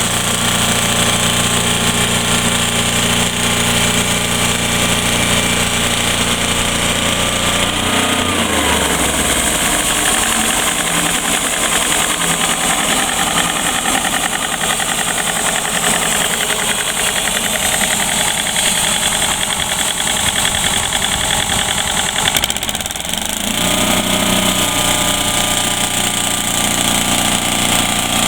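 Wood-Mizer portable band sawmill running steadily. Its pitch slides down about eight seconds in, stays lower and rougher for a long stretch, and comes back up to the earlier steady pitch about 23 seconds in.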